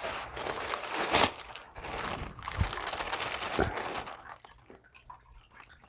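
Packing paper crinkling and rustling as it is pulled out of a box, with one sharper, louder crackle about a second in; the rustling dies down near the end.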